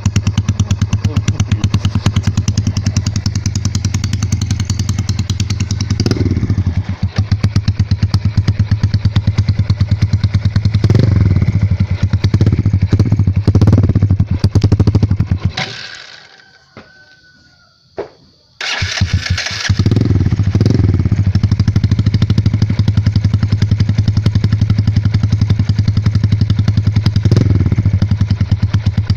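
Yamaha Jupiter motorcycle's single-cylinder four-stroke engine running through a CHA aftermarket exhaust, rising and falling in revs several times. The sound drops away for a few seconds in the middle, then returns with a few more rev rises.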